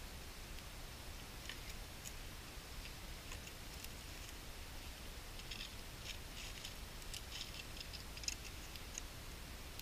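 A knife whittling a stick of deadwood: faint scattered scrapes and clicks of the blade cutting, coming thicker in the second half, with one sharper tick near the end.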